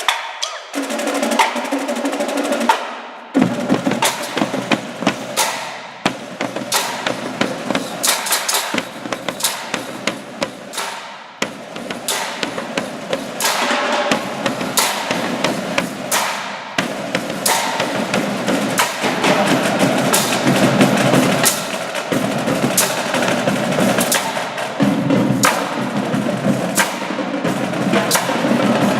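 Live percussion music: drums played with many sharp, rapid strikes over a continuous musical backing.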